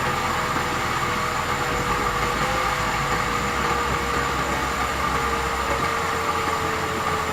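Toyota 2E four-cylinder petrol engine running steadily after a top overhaul, with a faint tone that sinks slowly in pitch as it runs.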